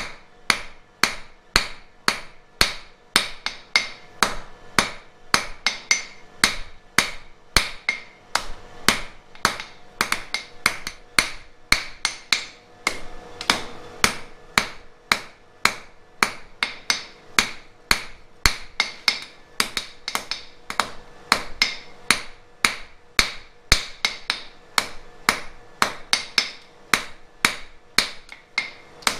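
Blacksmith's hand hammer striking a red-hot flat steel bar on an anvil, a steady run of blows about two to three a second, each with a short metallic ring.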